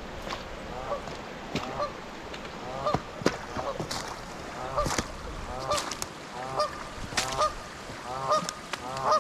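Geese honking over and over, the calls coming faster and louder toward the end, with a few sharp clicks among them.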